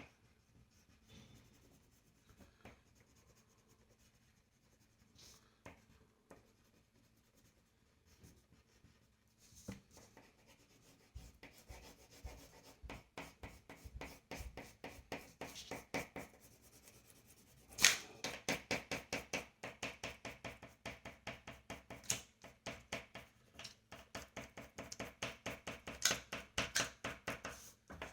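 Quick back-and-forth colouring strokes rubbing on paper, several strokes a second. Near silence at first, then the strokes start about eleven seconds in and grow louder after a sharp tap about eighteen seconds in.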